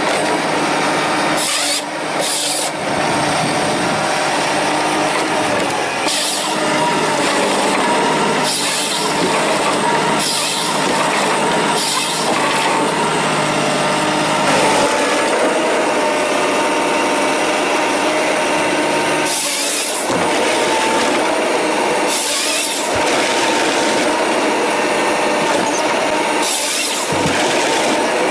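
Forestry harvester head at work: the base machine's engine and hydraulics run steadily, with short harsh bursts every few seconds as the head's saw cuts and its feed rollers and knives strip limbs from the stem. The pitch of the steady machine note changes about halfway through.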